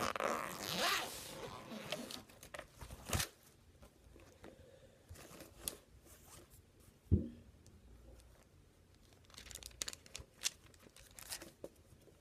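Paper rustling and crinkling for about two seconds, then scattered soft clicks and taps of handling.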